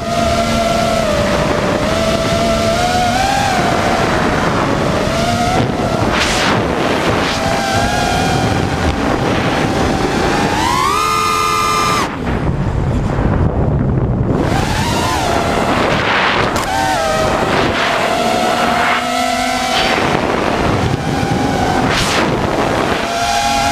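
FPV quadcopter's brushless motors whining over wind rushing across the microphone, the pitch wavering up and down with the throttle. About ten seconds in the whine climbs steeply, then drops away.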